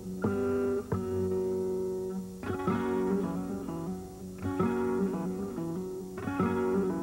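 Flamenco guitar playing a soleá: strong chords struck every one to two seconds and left to ring, with plucked notes between them.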